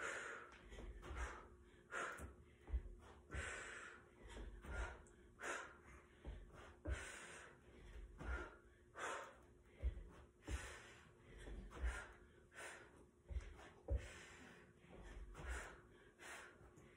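A woman breathing hard during box jumps onto an upholstered ottoman, with dull thuds of her feet landing about every three-quarters of a second.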